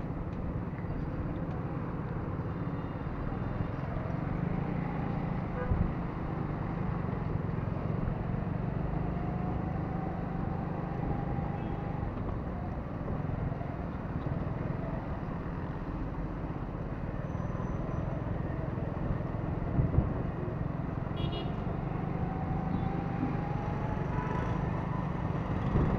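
Steady engine and road noise of a motorcycle riding through city traffic. The engine note rises slowly twice as it speeds up, with a couple of short knocks from the rough road surface.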